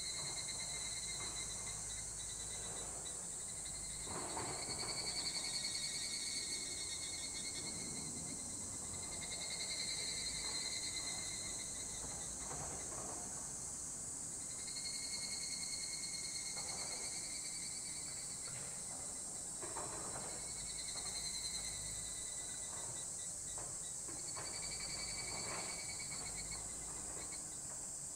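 Insect chorus: a steady high shrill with a trill at a lower pitch that swells in and fades out again every few seconds.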